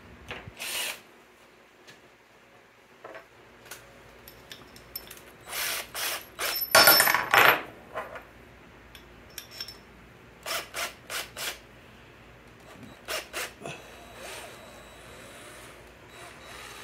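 Tools being handled on a wooden workbench: a cordless drill is picked up and a bit is fitted into its chuck, with scattered knocks and clicks. A louder rattle comes about seven seconds in, and a quick run of four sharp clicks comes around ten to eleven seconds.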